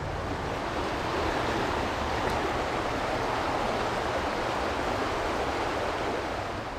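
Steady rushing of a swollen, fast-running creek, fading a little near the end.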